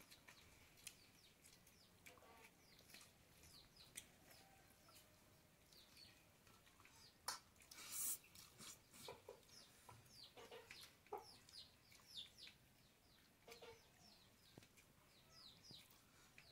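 Faint bird calls: quick high chirps throughout, with a few lower, short calls in the middle. A brief rustle or scrape stands out about halfway through.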